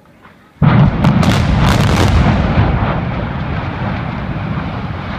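Explosive demolition charges bringing down high-rise tower blocks: a sudden loud blast about half a second in, then a quick run of sharp cracks, fading into a long rumble as the blocks collapse.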